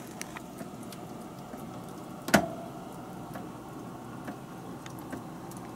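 Steady low hum in front of an open upright freezer, with faint scattered clicks and one sharp knock about two and a half seconds in.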